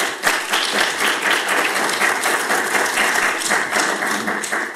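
Audience applauding: many people clapping at once in a dense run, easing off slightly near the end.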